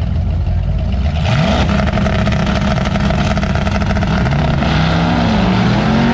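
C3 Corvette's V8 rumbling at the drag-strip starting line, then launching at full throttle about a second in and accelerating away. The engine note climbs, then dips and climbs again at a gear change near the end.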